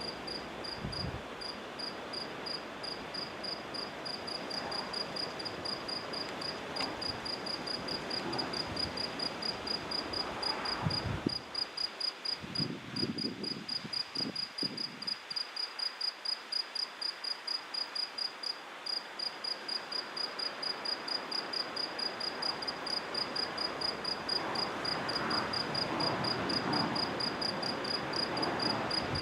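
A cricket chirping: one high, pure note repeated in a steady, even rhythm, over a soft background hiss.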